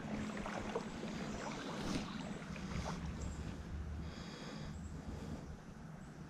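Outdoor creek ambience: the steady wash of shallow moving water with wind rumbling on the microphone, and a brief high chirping sound about four seconds in.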